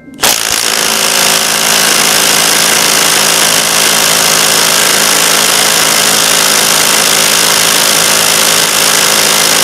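Milwaukee M12 FUEL FIW212 cordless impact wrench hammering continuously at full power, driving a bolt tight against a hydraulic torque tester. The rapid impacts blend into one steady, loud rattle that starts a moment in.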